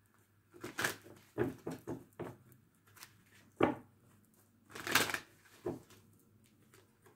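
Tarot cards being shuffled by hand: irregular short rustles and snaps of the cards sliding and tapping against each other.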